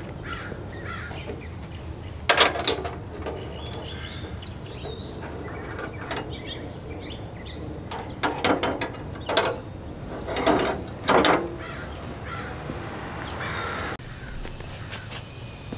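New steel brake line tubing clinking and rattling against a 1969 VW Beetle's bare metal floor pan as it is laid along the tunnel and fitted, in a few short bursts over a steady low hum.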